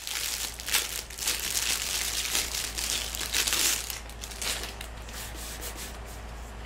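Plastic packaging crinkling and rustling as it is handled and pulled open, busy for the first few seconds and then fainter.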